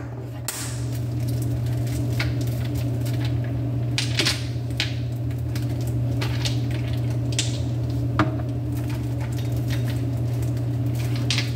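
Light clicks and taps of small objects being handled over a steady low hum.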